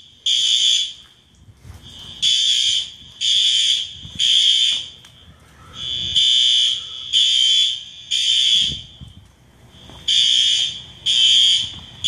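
Building fire alarm horns sounding the evacuation pattern: groups of three short, shrill electronic blasts with a longer pause between groups, repeating. The alarm has been set off by the sprinkler system.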